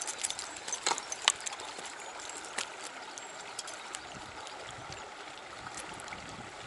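Trout stream water running steadily, with a few sharp clicks in the first few seconds.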